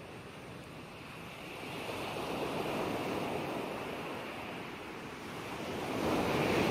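Ocean surf washing in, a steady rush that swells, eases back and swells again.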